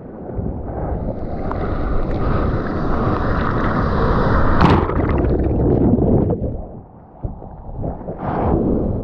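Whitewater from a broken wave rushing and sloshing around a surfboard at the water's surface. The foam surges loudest a little before halfway through, drops away briefly about seven seconds in, then washes up again near the end.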